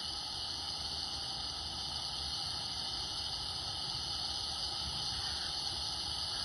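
A steady high hiss with no change in level.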